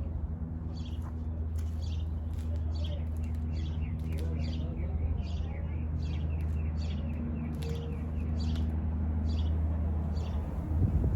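A bird calling with short, repeated falling chirps, about two a second, over a steady low motor-like hum that stops shortly before the end, followed by a couple of knocks.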